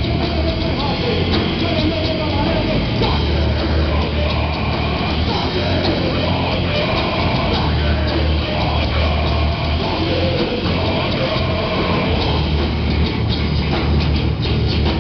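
Live rock band playing heavy metal: electric guitars, bass and drum kit at full volume, with a singer's vocals through the PA over a heavy low end.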